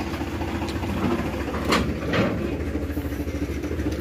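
Powertrac Euro 50 tractor's diesel engine running steadily at low revs as it pulls a loaded trailer slowly through a tight gap, with two short knocks a moment apart near the middle.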